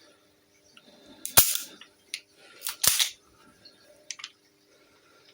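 Replica air pistol being worked by hand: two sharp metallic clacks about a second and a half apart, with lighter clicks between and after.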